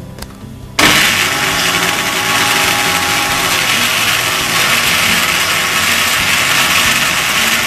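Electric mixer grinder (mixie) switched on about a second in, its motor running loud and steady as the blades grind chopped tomatoes and soaked Kashmiri chillies into a fine paste.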